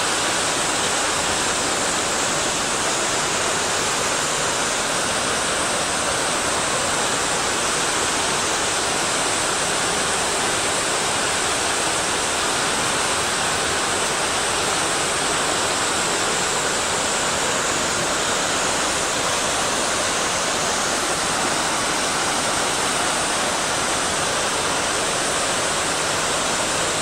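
Rushing mountain water, a steady even roar of flow and splashing with no pauses or changes.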